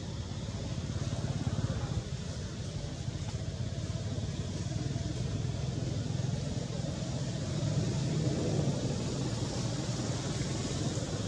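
Steady outdoor background noise with a low rumble and no distinct events, like distant traffic, with faint voices mixed in.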